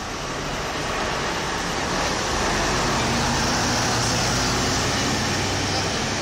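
Highway coach's diesel engine pulling away from the stop and accelerating past, over street traffic. It grows louder to a peak about halfway through as the back of the coach goes by, then holds steady as it drives off.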